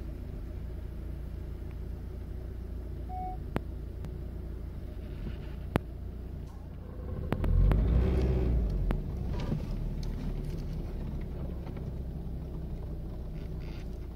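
Car engine running, heard from inside the cabin: a steady low rumble that swells for a couple of seconds about halfway through as the car creeps forward, with a few sharp clicks.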